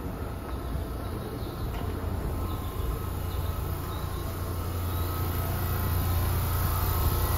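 Standing Seibu 10000 series electric train's onboard equipment running at rest: a steady low hum with fainter higher tones over it, growing louder from about two seconds in.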